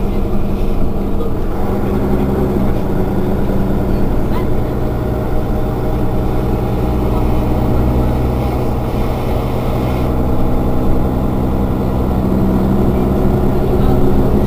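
Mercedes-Benz Citaro facelift city bus's rear-mounted engine idling steadily while the bus stands at a stop.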